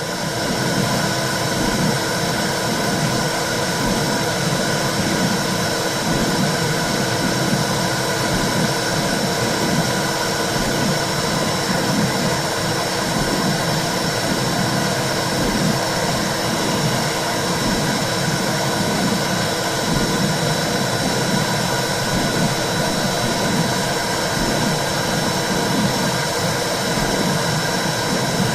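Womb-sound recording for soothing a baby: a steady rushing whoosh with a low, uneven pulsing beneath it.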